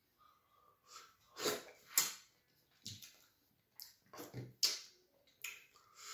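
Close-miked eating sounds as a man eats fufu dipped in Ghanaian light soup with his hand: a string of short, sudden wet sounds.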